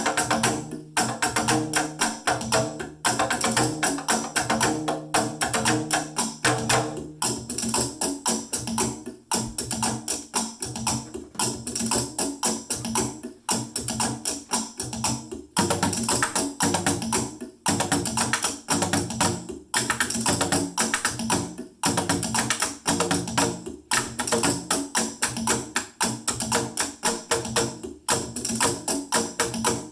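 A drum jam played on everyday household objects used as drums: fast, dense tapping and knocking in a repeating rhythm that falls into phrases of about two seconds, with a brief gap between each.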